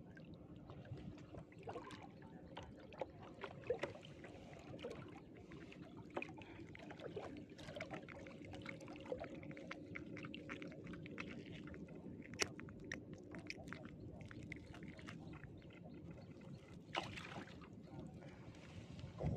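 Water dripping and splashing with many small clicks and knocks as a gill net is hauled up by hand and worked through, with a faint steady hum underneath for much of the time.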